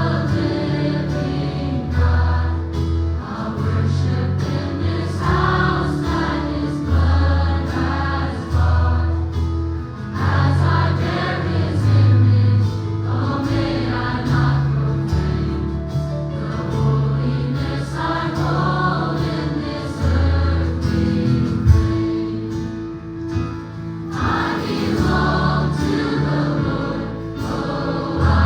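Choir singing a gospel worship song with instrumental accompaniment, over a bass line that moves every second or two.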